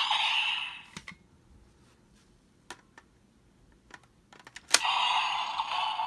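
Plastic clicks from handling and working the DX Magnum Shooter 40X toy gun with a buckle loaded. Near the end a sharp click sets off the toy's small speaker, which plays a tinny electronic sound effect.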